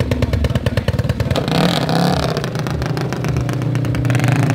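Motorcycle engine running with a rapid, even popping exhaust beat. About a second and a half in, it gives way to a smoother, higher revving engine note.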